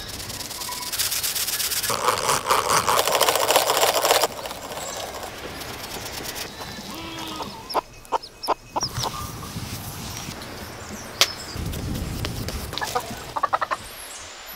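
A fine-mesh sieve being shaken over a bowl as powdered sugar is sifted, a fast rhythmic rasping that lasts a few seconds. Later come short, scattered calls from ducklings and other fowl.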